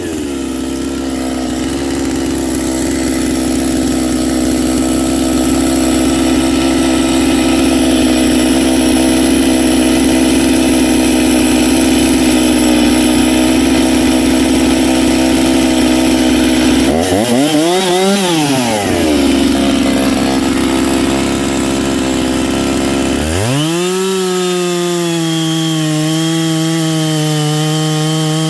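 Two-stroke gasoline chainsaw running at high speed and cutting wood. Past the middle the engine rises and falls in pitch once, and for the last few seconds it runs at high speed out of the cut, its pitch wavering slightly.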